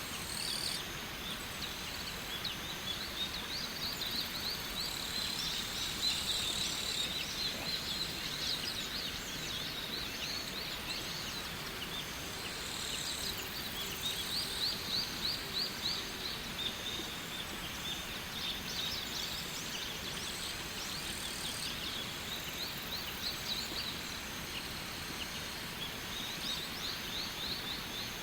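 Steady rush of falling water, with a bird singing over it in short runs of quick, high, repeated notes several times.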